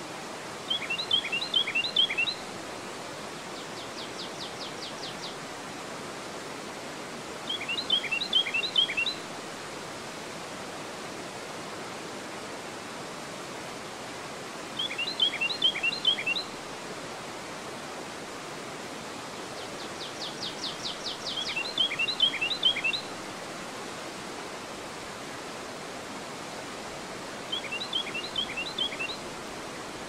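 Steady rush of river water pouring over a dam weir into rapids. Over it a songbird sings a short phrase of quick down-slurred whistled notes five times, about every seven seconds, with a faint rapid trill twice.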